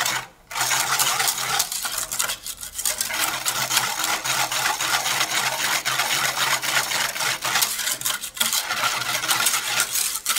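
A wire whisk stirring powder into water in a metal pot, its wires scraping and clicking rapidly against the pot's sides and bottom, stopping briefly a few times. The jelly powder is being dissolved in cold water before the heat goes on.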